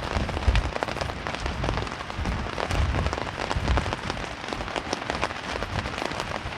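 Rain pattering on a hammock tarp overhead: a dense, steady run of drop ticks, with a few low gusty rumbles of wind on the microphone.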